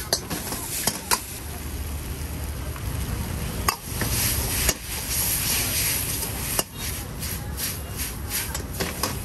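Stir-frying noodles and vegetables in a wok over a high gas flame: the food sizzles steadily while a metal ladle scrapes and clanks against the wok. The sharp clanks come at irregular moments, with a quick run of them near the end.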